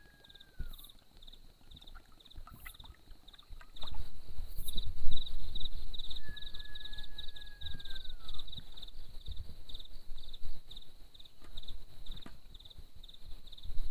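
Forest insects chirping in a steady pulsing rhythm at a high pitch, with a long whistled call that holds its pitch and then falls away, about six seconds in. From about four seconds in, low thumps and knocks close to the microphone are the loudest sound.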